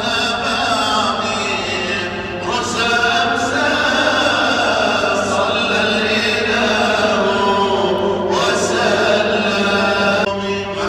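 Melodic Islamic vocal chanting, with long held notes that waver and slide in pitch.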